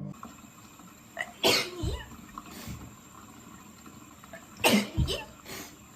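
A person sneezing twice, about three seconds apart: each sneeze is a sharp burst with a short voiced tail.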